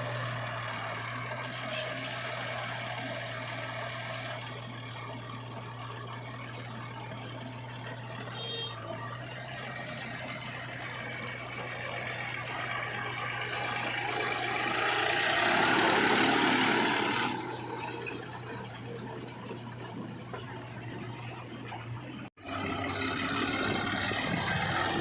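Heavy diesel engine running steadily, with a louder rush of noise for about three seconds past the middle. Near the end the sound cuts off abruptly and a different, harsher machine sound takes over.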